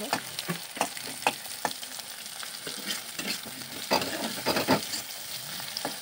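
Sliced onions sizzling in hot oil in a wok, with a spatula scraping and knocking against the pan as they are stirred. The strokes come in bunches, busiest about four to five seconds in.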